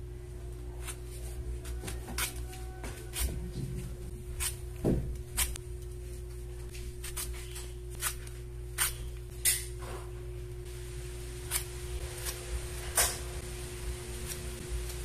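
Vegetable peeler scraping strips of skin off a green mango: irregular short, sharp scrapes and clicks, over a steady low hum.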